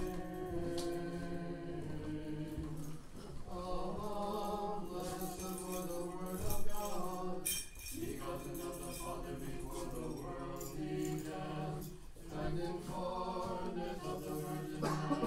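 Small Orthodox church choir singing a Vespers sticheron in several-part harmony, on long held chords. Censer bells jingle now and then, loudest about six and a half seconds in.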